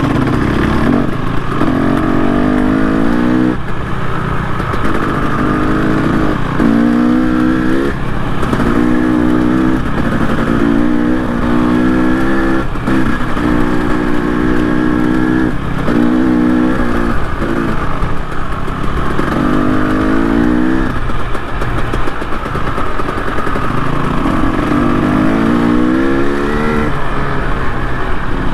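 Trail motorcycle's engine revving up and easing off over and over, the pitch climbing and then dropping every second or two, with a lower, steadier stretch about two-thirds of the way through before the rises resume.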